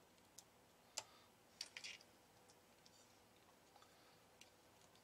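Faint scattered clicks and taps of test-lead clips being handled and touched to the power transistors of an RF amplifier board: one sharp click about a second in and a quick little cluster just before two seconds, otherwise near silence.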